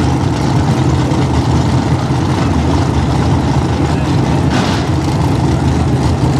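Drag-racing engines idling at the starting line, a steady, choppy low rumble. A short hissy burst comes about four and a half seconds in.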